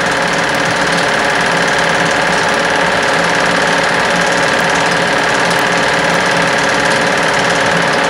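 Film projector running steadily.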